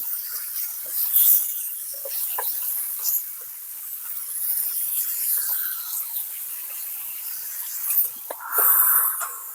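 Chicken breast fillets sizzling on a hot grill: a steady high hiss with scattered small pops and crackles, briefly louder near the end.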